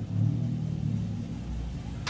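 Honda Civic's engine idling, a low steady hum that swells briefly about a quarter second in.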